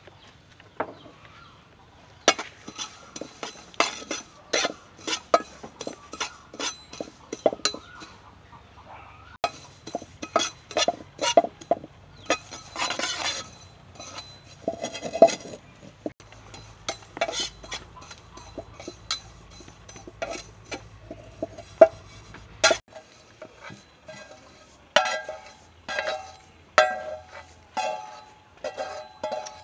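Metal spoon stirring and scraping small seeds around a dry frying pan: a busy run of clinks and scrapes. Near the end come a few ringing metal taps as the seeds are tipped out of the pan.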